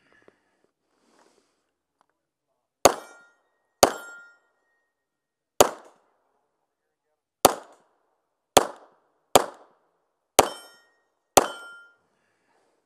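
Glock 17 9mm pistol fired eight times at roughly one-second intervals, each a sharp crack; a short ring lingers after a few of the shots.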